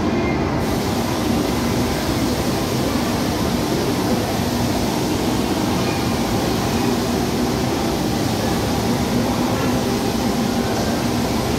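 Steady, loud rumbling din of amusement rides running in a large indoor hall, with no distinct events standing out.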